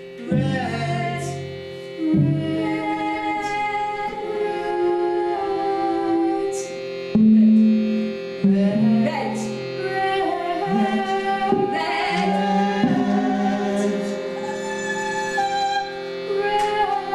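Live music: a violin playing gliding, changing phrases over a steady held drone from a keyboard instrument, with a woman's voice singing.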